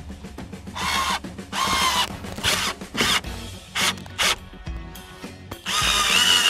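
An 18-volt cordless drill/driver drives screws into a metal mounting bracket, its motor whining in a string of short trigger bursts, then a longer run near the end.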